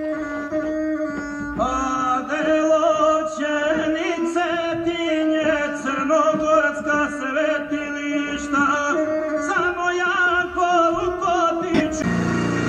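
Background music: a held drone under an ornamented, wavering melody that comes in about a second and a half in. Near the end it gives way to a lower, rougher sound.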